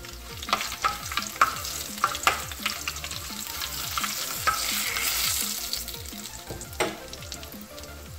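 Tempering in coconut oil: curry leaves, dried red chillies, mustard seeds and urad dal sizzling in a hot kadai as a spoon stirs them, with clicks and scrapes of the spoon on the pan. The sizzle swells in the middle, and there is a sharp clink a little before the end.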